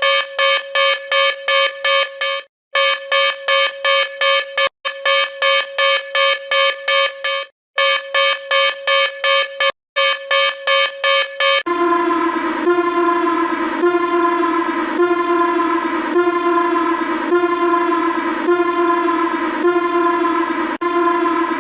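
Mock Emergency Alert System alarm tones. First a rapid beeping of a buzzy multi-tone note, about four beeps a second, broken by a few brief pauses. About twelve seconds in it switches to a lower, steady siren-like tone with falling sweeps repeating about once a second.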